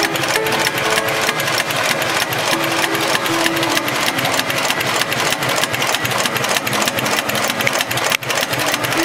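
HighTex 71008R computerized heavy-duty bar-tacking sewing machine stitching a zigzag bar tack through a doubled climbing rope to form a sewn eye, its needle strokes coming in a rapid, even rhythm. A brief break comes about eight seconds in.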